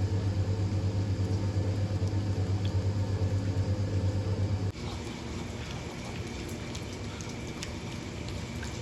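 A vehicle engine running at a steady low hum. It cuts off abruptly a little under five seconds in, leaving quieter background noise with a few faint clicks.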